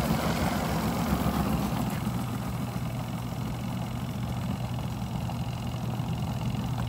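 Spin-dryer basket of a Rovsun twin-tub portable washing machine spinning a wet shirt, its motor running with a steady low hum as it spins the water out.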